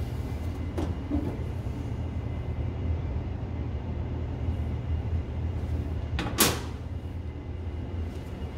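Metal cover door of a residential breaker panel being handled: a faint click as it is swung open about a second in, then a single sharp metallic clack about six and a half seconds in as it is shut. A steady low rumble runs underneath.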